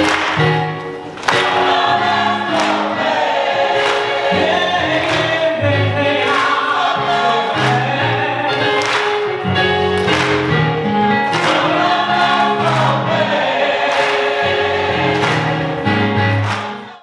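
Choir singing a gospel song over a steady beat, with sharp accents about every second and a third. The music fades out quickly at the very end.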